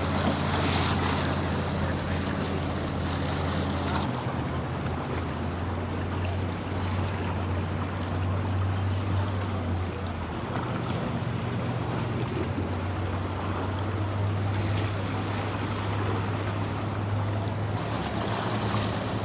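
Boat engines running with a low, steady drone, over the wash of surf and wind on the microphone. The engine note changes about four seconds in and again about ten seconds in.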